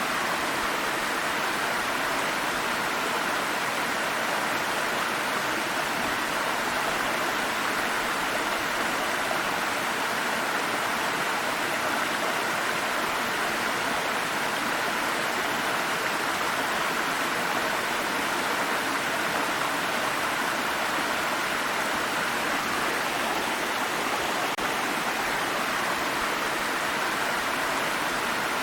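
Water stream running over rocks: a steady, even rushing and burbling of flowing water with no change in intensity.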